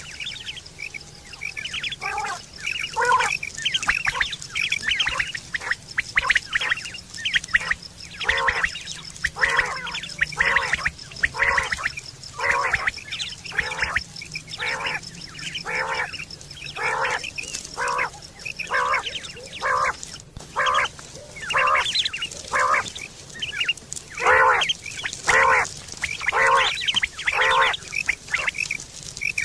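Bird calls: a steady run of short, harsh calls, about one or two a second, some higher and thinner than others, over a faint steady high tone.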